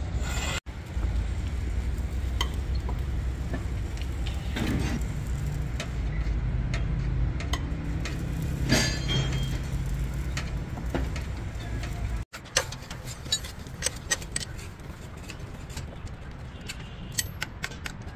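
Steel hand tools clinking and tapping against the steel sprocket and hub of a Komatsu D155A bulldozer's final drive during reassembly, with a steady low machine rumble under the first part. After a cut about two-thirds in, quick sharp metallic taps follow one another.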